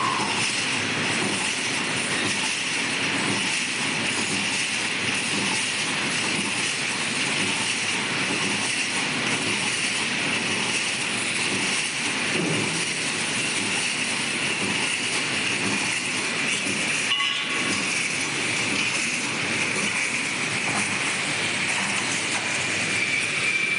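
Wire mesh welding machine running continuously while making roll mesh, a loud, steady mechanical noise.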